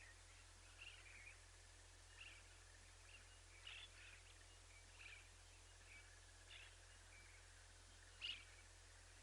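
Faint, short bird chirps repeating about once a second, the loudest one near the end, over a steady low hum.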